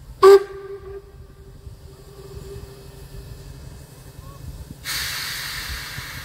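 Steam locomotive: a short, loud whistle toot about a quarter second in, its low note lingering and fading over the next couple of seconds above a low rumble. About five seconds in, a sudden steady hiss of released steam starts.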